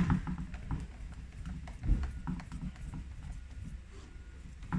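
Irregular light clicks and knocks of a T27 Torx T-bar being turned to back a screw out of a Stihl MS 181 chainsaw's plastic housing.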